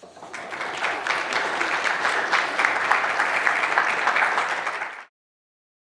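Audience applauding: many hands clapping, building up over the first second, then holding steady until it cuts off abruptly about five seconds in.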